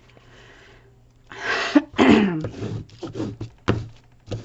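A woman sneezes about halfway through: a sharp breathy burst, then the loud sneeze, followed by a few softer short sounds.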